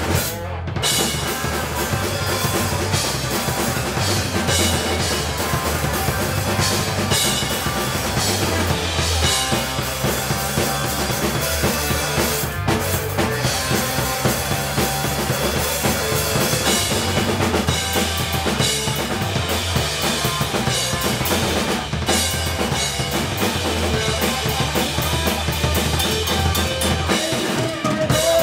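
Live rock band playing: drum kit with snare and bass drum, under bass guitar and electric guitar, with a few short breaks in the playing.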